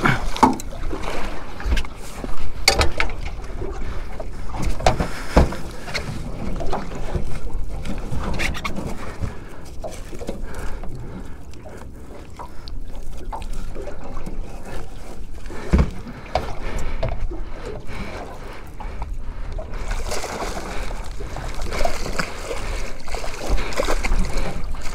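Water slapping and sloshing against a small aluminium boat, with scattered sharp knocks and thumps on the hull. Near the end a hooked mackerel splashes at the surface beside the boat.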